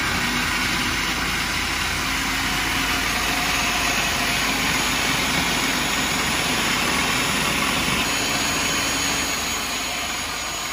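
Electric food processor motor running at full speed, its blade chopping garlic, parmesan, basil, olive oil and anchovies into a thick Caesar dressing. Steady loud whirring with a high whine; near the end the motor begins to slow down.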